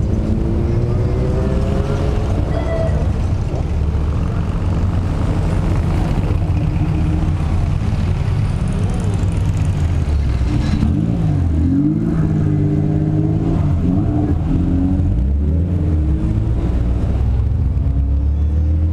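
Cars in a slow procession passing one after another, engines running. Near the start one speeds up with a rising engine note, and from about eleven to fifteen seconds in an engine revs up and down several times.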